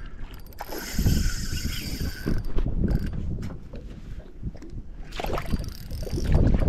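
Spinning reel being wound in, its gears whirring, over heavy wind buffeting.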